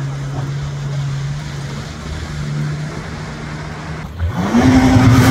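Jet ski engine running with a steady drone. About four seconds in it switches suddenly to a louder, closer jet ski revving up, its pitch rising and then holding, over the hiss of spray.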